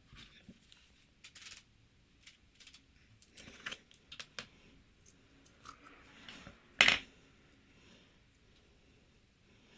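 Slime being handled and mixed: scattered soft sticky clicks and crackles, with one sharp loud click about seven seconds in.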